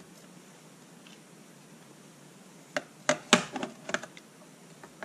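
A quick run of light clicks and knocks, lasting about a second and starting a little under three seconds in, as the assembled box housing is turned in the hands and a tube of cement is brought against it. Faint room tone before it.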